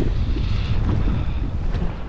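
Steady wind buffeting the microphone, with choppy sea washing around a fishing kayak.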